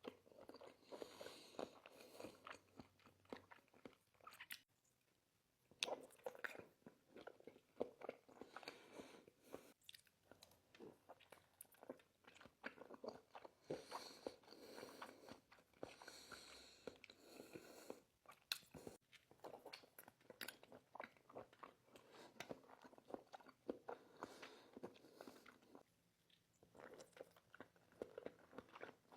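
A person chewing and biting raw salmon sashimi close to the microphone: wet, smacking mouth sounds and quick clicks in bursts, with short pauses about five seconds in and near the end.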